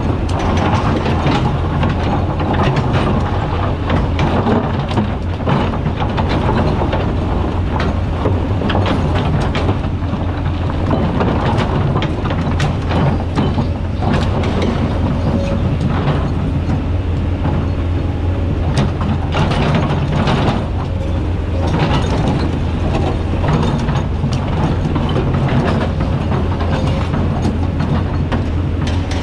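Kobelco hydraulic excavator's diesel engine running steadily under load while its bucket digs, with many short knocks and scrapes of steel on rock and stones clattering throughout.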